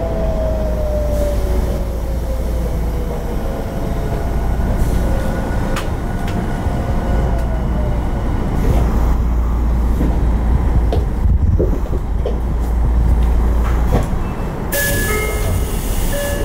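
Running sound heard inside a Tokyo Metro 02 series subway car with Toshiba IGBT-VVVF drive, as the train nears a station: steady wheel and track rumble, with the inverter-motor tones falling in pitch over the first few seconds. There are scattered rail clicks, and a burst of hiss near the end.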